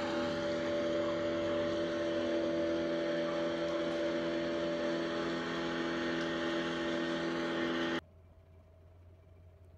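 Motorboat engine running steadily with an even hum, cutting off suddenly about eight seconds in.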